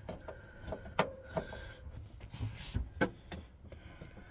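Tools and parts being handled while working on a camper fridge's mounting screws: a few sharp clicks and knocks spread out, with a short rustling scrape a little before three seconds in.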